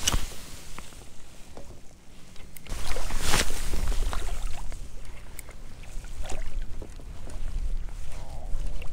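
Shallow bay water sloshing and lapping around a wading angler, with wind gusting on the action-camera microphone from about three seconds in. There are two short rushing sounds, one at the start and a louder one about three seconds in.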